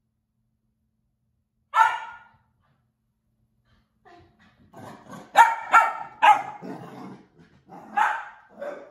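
Bernedoodle barking excitedly during a zoomies run. One bark comes about two seconds in, then a quick run of barks in the middle, and two more near the end.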